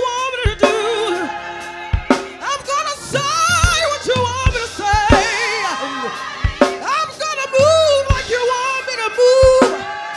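Music: a singer with strong vibrato and runs over a drum kit and bass, as in a gospel song.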